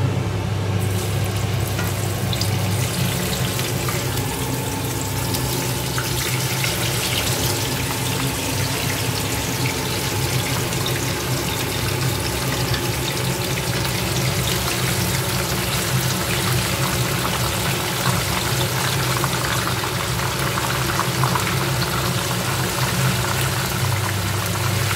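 Pieces of tilapia deep-frying in hot oil in a pan, a steady sizzling and spattering hiss that starts about a second in and keeps up. A steady low hum runs underneath.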